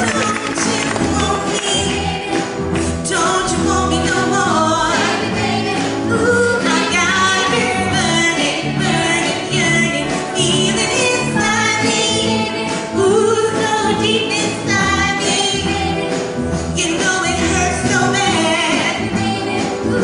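A 1960s girl-group song sung live by women, a lead voice with backing singers, over musical accompaniment with a steady beat.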